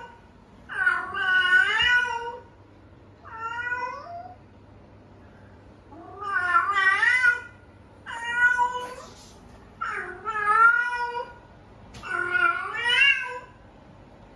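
Domestic cat meowing six times, long drawn-out calls with a wavering pitch, one short one a few seconds in.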